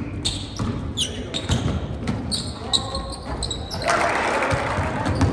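A basketball being dribbled on a hardwood gym floor, with sneakers squeaking sharply as players cut and jostle. The sound gets louder and busier near the end, as the action reaches the basket.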